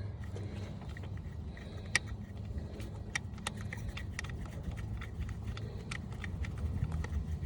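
Light, irregular metallic clicks and clinks of a small coil-pack bolt and hand tools being handled at the engine, one sharper click about two seconds in, over a steady low rumble.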